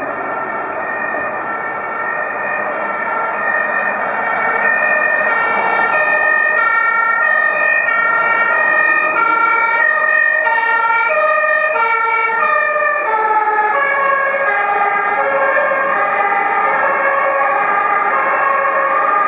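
German fire engine's two-tone siren sounding its alternating high-low pattern as the truck approaches, growing louder over the first few seconds. About 13 seconds in the whole pattern drops in pitch as the truck passes, with road traffic running underneath.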